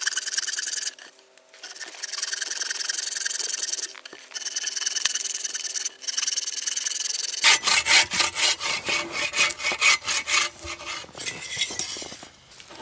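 Wood being sawn by hand: long, steady rasping passages with short pauses. About seven seconds in it changes to quicker, regular strokes, about four or five a second.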